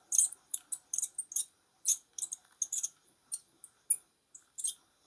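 Light metallic clicks and ticks of a small steel hand tool being handled against a shotgun's vent rib: a rapid, irregular run of about twenty sharp little clicks.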